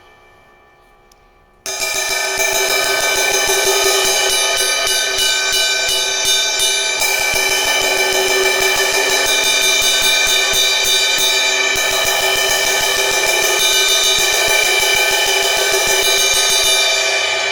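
Zildjian A Custom 18-inch crash cymbal (B20 bronze) played repeatedly with a stick. A faint ring opens, then about a second and a half in the playing starts suddenly and builds into a continuous, even, shimmering wash to the end.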